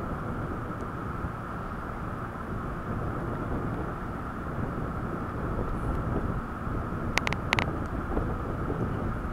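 Steady running rumble of an electric train, with a few sharp metallic clicks a little after seven seconds in.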